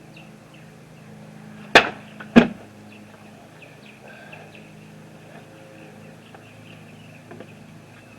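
Two sharp smacks about half a second apart: the pocket knife's blade slashing into a water-filled plastic soda bottle, which is knocked over by the cut. Faint bird chirps and a steady low hum run underneath.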